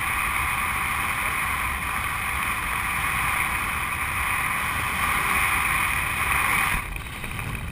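Wind rushing over the camera's microphone during a tandem parachute descent under an open canopy: a steady, loud rush that drops away about seven seconds in.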